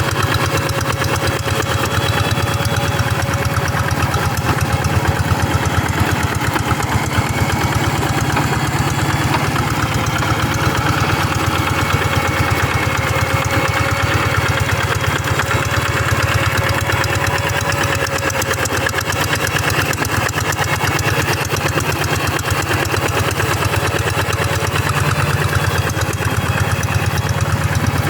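Single-cylinder diesel engine of a two-wheel hand tractor (G1000) running steadily, working a rice paddy.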